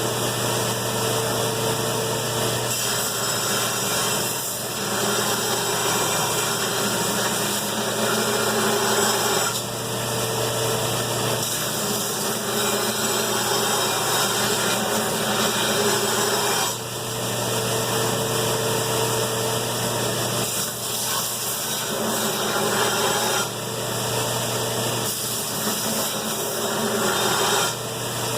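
Belt grinder running while a steel sword blade is ground to its final profile and point. The grinding comes in a series of passes a few seconds long over the machine's steady hum.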